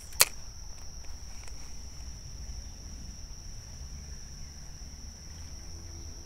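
Steady high-pitched drone of insects in the summer vegetation, over a low rumble of moving air. About a quarter second in there is one sharp click, the loudest sound here, as the spinning reel is handled before the cast.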